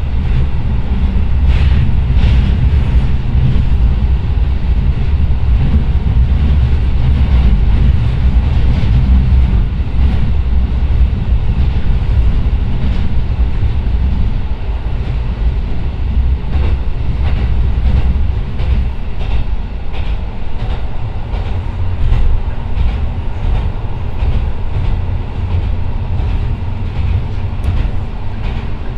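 Inside a JR Kyushu KiHa 125 diesel railcar on the move: its Niigata DMF13HZ engine drones low and steady while the wheels click over rail joints. The sound eases a little about halfway through.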